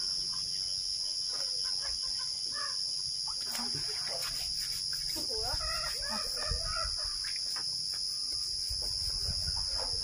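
Chickens clucking, with a rooster crowing about five seconds in, over a steady high-pitched insect drone.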